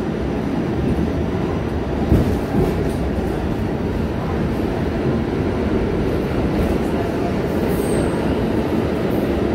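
New York City Subway C train running, heard from inside the car: a steady rumble of wheels on rail, with one brief knock about two seconds in.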